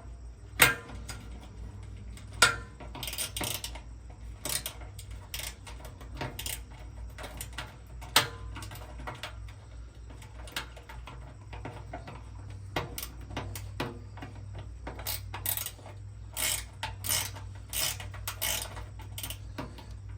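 Irregular metallic clicks, clinks and knocks of hand tools on the smoker's steel lid and latch hardware as a screw and nut are turned and held, some in quick runs of clicks.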